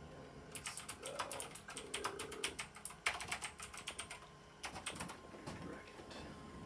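Typing on a computer keyboard: several short runs of quick key clicks with brief pauses between them.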